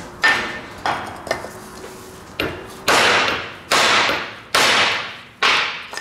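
About eight hammer blows on a socket used as a driver, each a sharp metallic strike with a brief ring, irregularly spaced. They are knocking an old seal out the back of a tractor transmission housing, and the seal is starting to come out.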